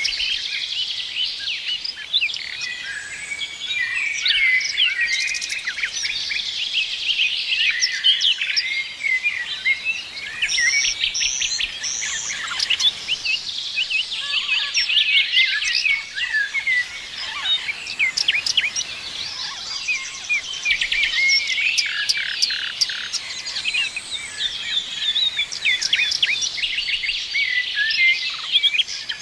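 A dense chorus of many songbirds chirping and trilling together without a break, over a faint hiss of outdoor background noise.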